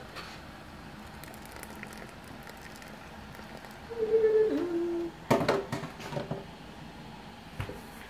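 A cooked lobster being lifted out of a boiling stockpot: about four seconds in a person hums two notes, the second lower, then a quick run of knocks and clatter against the pot as the lobster comes out, with one more knock near the end.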